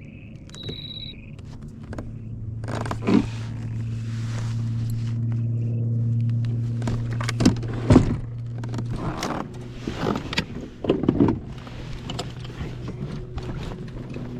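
A small electric motor hums steadily, swelling up about two and a half seconds in and easing off after about nine seconds, with several sharp knocks and scrapes on top.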